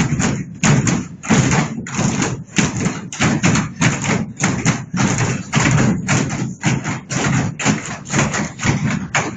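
A group of speech-choir performers stamping and clapping: a quick, loud run of thumps, about three a second.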